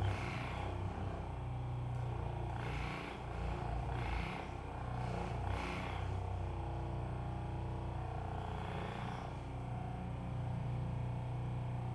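A steady low motor hum, with a few short faint sounds on top of it about three, four and five and a half seconds in.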